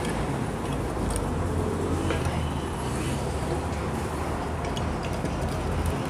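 Steady low background rumble and hum, with a few faint light clicks of metal engine parts being handled.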